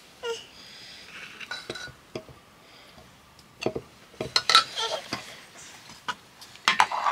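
Metal utensils clinking and scraping against metal pots and dishes in a series of irregular clinks, busier from about halfway through.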